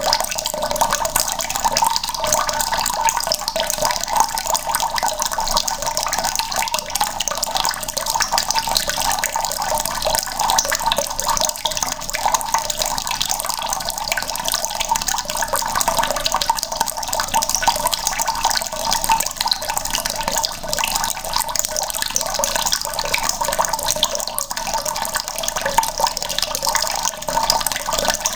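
Water running from a tap into a bucket: a steady, unbroken splashing stream.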